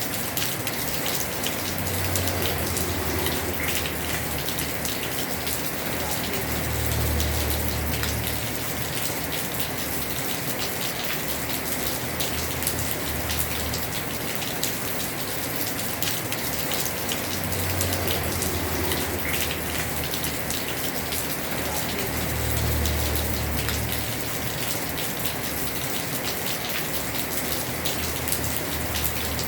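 Heavy rain falling on a house roof: a steady hiss of many drops with fine patter. A low rumble swells and fades four times.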